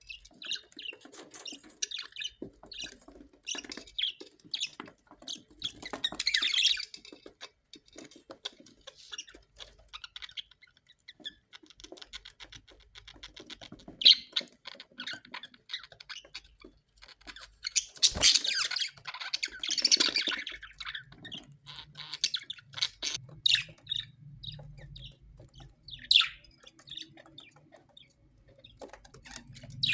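Parrots chattering, with a dense run of short chirps and clicks broken by louder harsh squawks, the loudest a bit past halfway.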